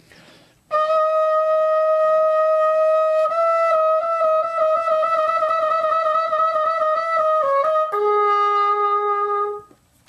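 Solo trumpet holding a note, then trilling a half step above it, starting on the upper note, with the trill speeding up toward its end. It then resolves down to a lower note held for about a second and a half.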